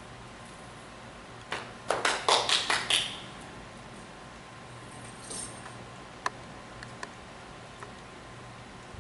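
A quick run of about seven sharp hand claps, starting about a second and a half in and over within a second and a half, then a few faint ticks.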